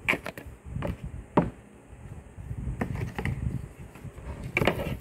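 Cardboard phone packaging being handled: a paper insert and a box lid lifted and set down, giving a series of light knocks and rustles, the sharpest about a second and a half in and a small cluster near the end.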